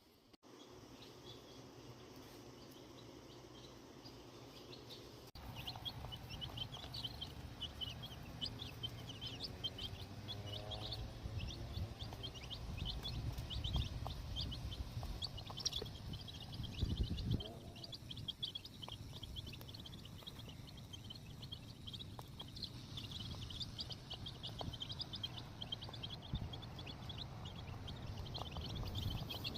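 Young chickens peeping and chirping, many short high chirps overlapping, growing busier about five seconds in, over a low rumble.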